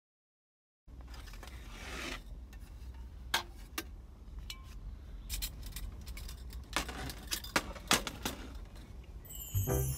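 Metallic clicks and clinks as a folding single-burner camp stove is handled and a gas canister is fitted to it, a few sharp clacks standing out among quieter handling. Music comes in near the end.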